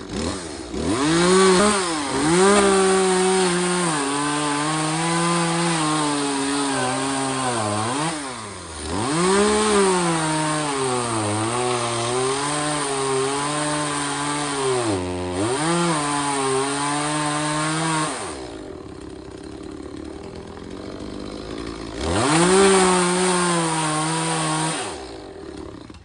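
Gas chainsaw running at high revs and cutting into a tree trunk, its pitch sagging several times as the chain bites into the wood. About two-thirds of the way through it drops to a lower, quieter run for a few seconds, revs up again, then drops away near the end.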